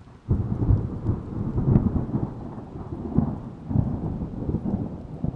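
Gusty wind buffeting the microphone, a low rumble that surges and falls irregularly, over small waves breaking at a lakeshore. It comes in suddenly just after the start.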